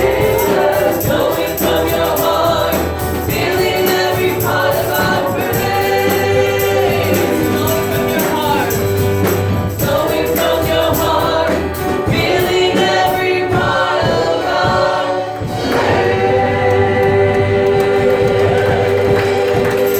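Gospel worship music: a group of singers holding sustained notes over a band with a steady bass line and tambourine.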